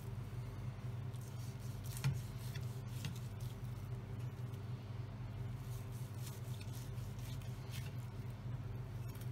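A large chef's knife carving slices from a roast leg of lamb on a wooden chopping board: faint scrapes and taps of the blade, the clearest about two seconds in, over a steady low hum.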